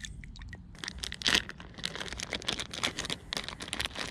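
Close rustling and crinkling handling noise, a dense run of light crackles starting about a second in.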